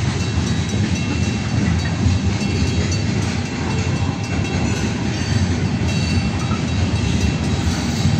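Freight train of covered hopper cars rolling past close by: a loud, steady rumble of steel wheels running on the rails.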